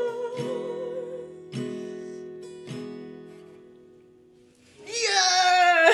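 Acoustic guitar's last strummed chords ring out and die away under a final held, wavering sung note, leaving a second or so of silence. Near the end a loud, high voice breaks in with sliding pitch.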